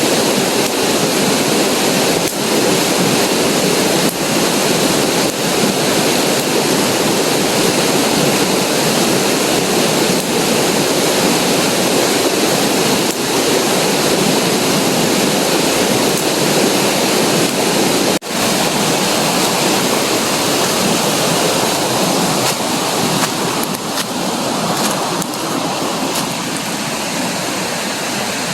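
Steady rushing of flowing water, like a waterfall or rapids, with a momentary break about two-thirds of the way through.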